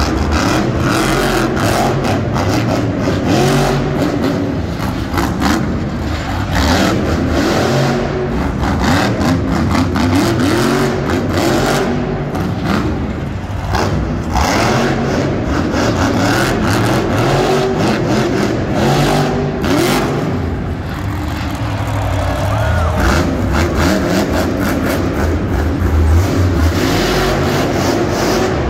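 Monster truck engine revving hard, its pitch rising and falling over and over as the throttle is worked.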